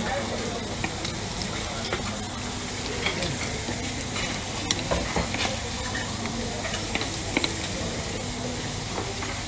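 Meat sizzling on a hot flat-top griddle (plancha), with a few short clicks and scrapes of metal tongs against the plate.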